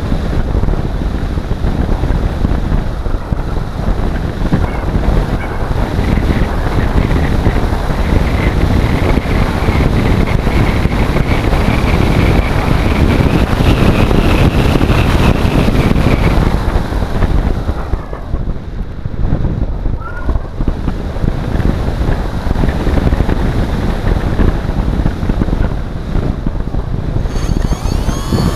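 Airstream rushing over the microphone of a camera riding on a model aircraft in flight: loud, steady wind buffeting. A faint high whine rises slowly through the middle and stops about two-thirds of the way in, and the rush eases briefly soon after.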